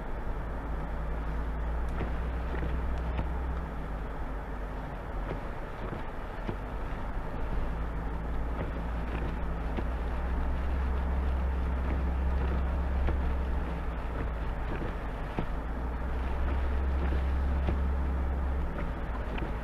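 Steady low rumble of a motor vehicle running, with a constant low hum under a wash of road and wind noise.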